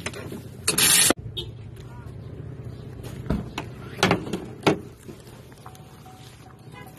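Wheelchair tie-down straps and hooks being unfastened from the van's floor anchors: a short rasping burst about a second in, like a strap running off its retractor, then a few sharp metal clicks.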